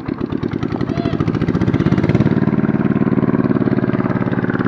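A small engine running, its fast, even firing speeding up over the first two seconds and then holding a steady speed.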